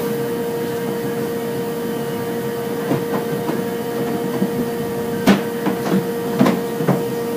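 Hand work on a sheet-metal car hood panel: a few sharp metallic clicks and clanks, the loudest about five seconds in, over a steady hum.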